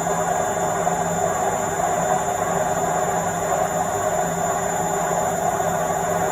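Washing machine on the final spin of a quick wash programme, its drum spinning fast with a loud, steady whirring hum.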